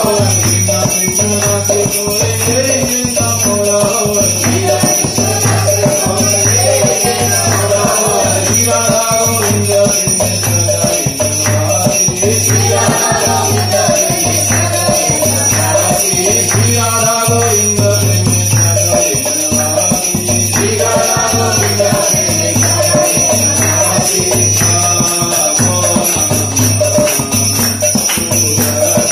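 Devotional aarti music with a steady drum beat and a sung melody, while a bell jingles continuously.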